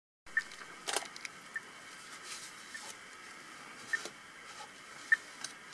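Outdoor ambience: a short high peep repeating evenly, about once every 1.2 seconds, over light rustling, with a couple of sharp clicks about a second in.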